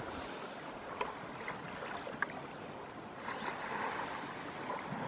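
Small waves of a calm sea lapping on a sandy shore: a steady soft wash with scattered faint crackles.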